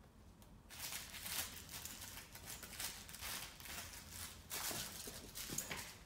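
Puppies scuffling over toys on a rug: irregular rustling and scratching of paws and toys, starting about a second in.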